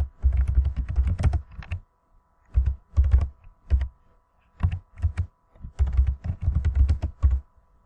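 Typing on a computer keyboard: quick runs of keystrokes with short pauses between them, each key landing with a dull thud.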